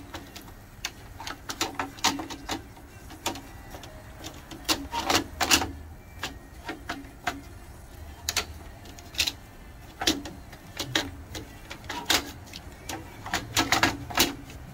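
Irregular clicks and knocks of a printer's plastic tractor feed unit against its metal frame as it is handled and worked into its slot, with clusters of quick clacks about five seconds in and again near the end.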